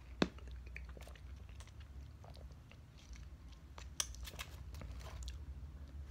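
Faint close-up mouth sounds of sucking and squeezing a fruit jelly out of its small plastic cup and chewing it, with soft wet clicks and squishes. A sharp click about a quarter-second in, and another about four seconds in.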